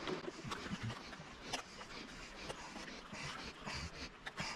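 Faint scattered clicks and rustling from hand work on the high-voltage battery's connectors.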